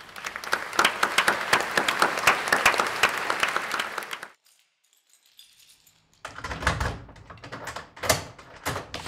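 Audience applause in a concert hall, dense and steady, cutting off suddenly after about four seconds. After a short silence, a door handle and latch click and the door knocks and thuds as it is opened.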